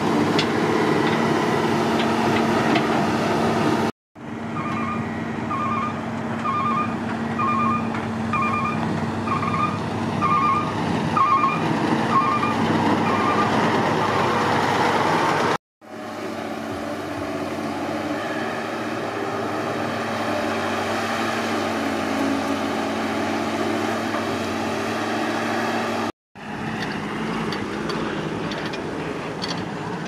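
Heavy diesel machinery running steadily: a Caterpillar E200B hydraulic excavator digging, and a Hyundai dump truck driving. In one stretch a reversing alarm beeps about once a second, around ten times.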